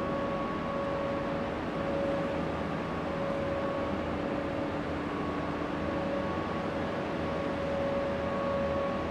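Steady hiss and low hum of machinery in a large, empty train-station hall, with a faint higher hum that fades in and out every second or two.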